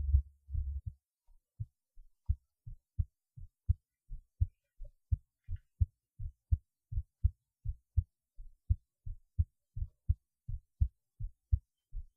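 A person's heartbeat: regular, low-pitched lub-dub thumps at a steady rate, a few to each second. A loud low rumble covers the first second, then cuts off.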